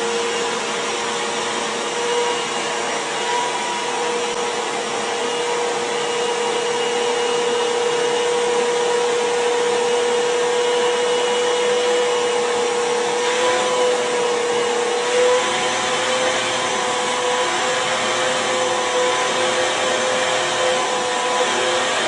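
Vacuum cleaner running continuously under suction: a steady motor whine over airflow noise. About two-thirds through, its pitch shifts slightly higher and it gains a little low rumble, as the load on the suction changes.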